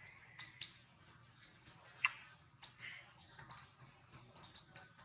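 Scattered sharp, irregular clicks and small crackles of a baby macaque biting and handling a piece of fruit.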